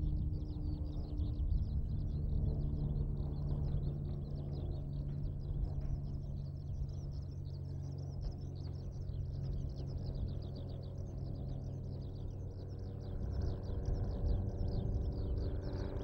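Eurasian skylark song: a continuous, rapid stream of high chirping and trilling notes. Under it runs a steady low engine hum, a little louder near the end.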